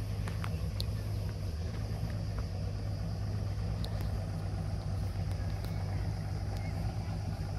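Outboard motor of a rigid inflatable boat running steadily at idle, a low even engine hum as the boat creeps forward.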